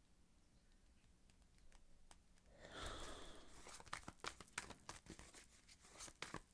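Tarot cards being shuffled by hand: silence for the first few seconds, then a soft rustle and a quick run of sharp card clicks from about three seconds in.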